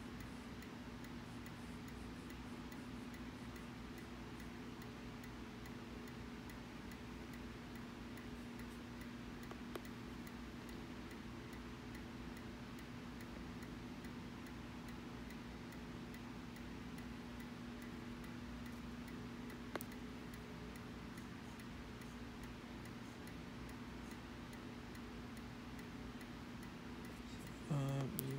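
Running video inspection equipment giving a steady electrical hum with a fast, faint, even ticking, and two sharper single clicks about ten seconds apart. A louder, lower hum comes in near the end.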